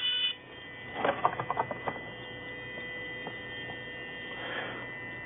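A dental lab handpiece's high-pitched whine as its round-end cylinder burr grinds the sprue off a milled ceramic restoration. It cuts off just after the start. About a second in comes a quick run of light clicks, and under it all a steady faint hum.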